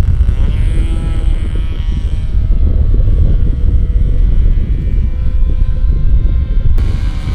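Radio-controlled model airplane, a vintage Graupner VarioProp Taxi, flying, its engine note rising in pitch shortly after the start and then drifting up and down as it moves about, over a heavy low rumble.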